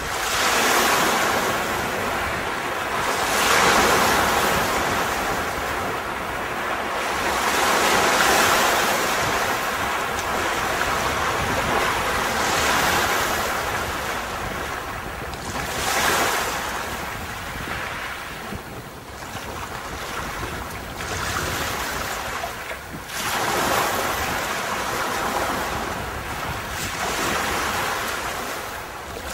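Sea surf breaking and washing onto a beach, swelling and ebbing every few seconds.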